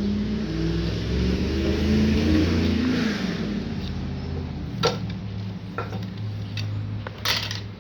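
An engine, most like a motor vehicle's, running with its pitch rising and falling about three seconds in, then easing off to a low hum. A few sharp clicks follow in the second half.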